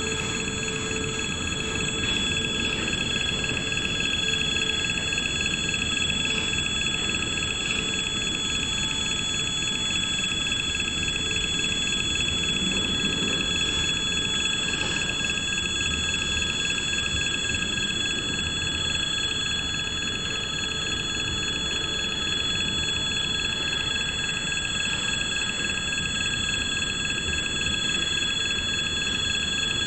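Freight wagons rolling past over the rails with a steady rumble, while the level crossing's warning bell rings continuously.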